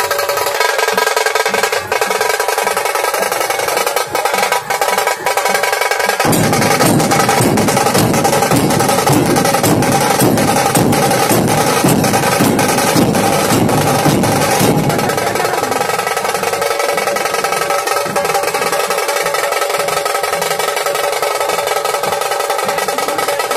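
Loud percussion music: drums beaten in fast, continuous rolls. A deeper drum part joins about six seconds in and drops out again about halfway through.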